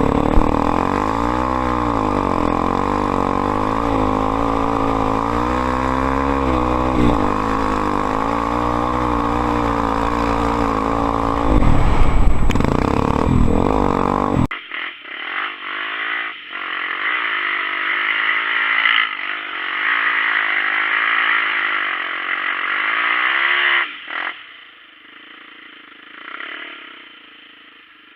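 Honda Tornado XR 250 trail motorcycle's engine running and revving up and down in pitch as it rides. About halfway through the sound turns abruptly thinner, then fades near the end.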